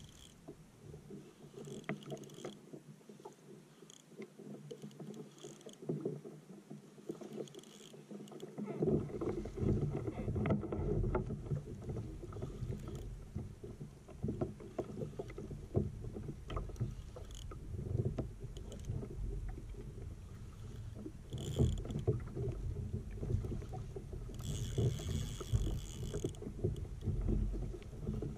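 Water slapping against a plastic fishing kayak's hull, with wind on the microphone and the clicking of a spinning reel cranked against a hooked fish, likely a skipjack tuna; the sound grows louder and rougher about nine seconds in.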